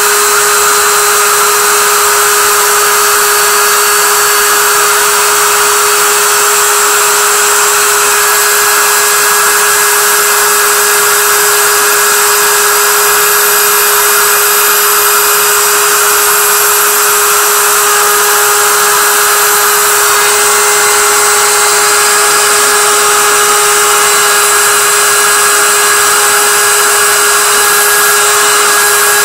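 GP10050 CNC milling machine's spindle running with a steady high whine as a small end mill cuts 1.5 mm brass sheet, with a constant hiss over it.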